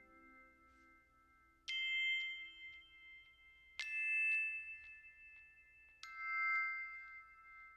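Background music: three struck bell-like notes about two seconds apart, each ringing on and slowly fading.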